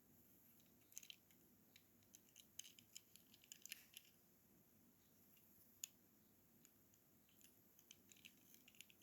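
Faint, scattered clicks and crinkles of toy-car packaging being handled, bunched in two spells and otherwise near-silent room tone.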